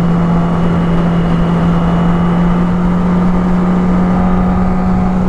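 Motorcycle engine running at a steady speed while riding, one unchanging drone over a steady rush of wind and road noise.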